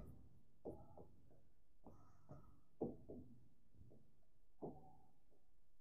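Near silence: room tone, with three faint, brief sounds spread through it.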